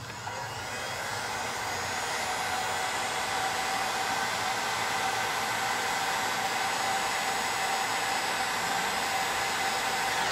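Bosch hot-air heat gun running, a steady rush of blown air with a steady fan whine, shrinking heat-shrink tubing over a soldered wire splice. It builds over the first second or two and cuts off suddenly at the end.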